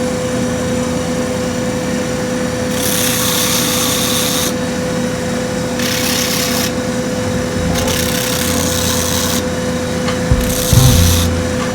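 A shoe repair grinding/sanding machine running with a steady hum, as a worn-down high heel is pressed against it in four passes of a second or two each, heard as a harsh hiss. A low thump near the end.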